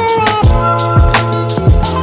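Background music with a steady drum beat, about two kicks a second, under sustained synth notes and a gliding melody line.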